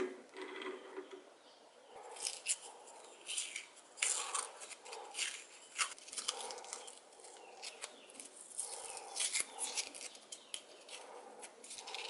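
Hands handling a small turned wooden spinning top and its wooden dowel stem: scattered light clicks, taps and rubbing of wood on wood and skin.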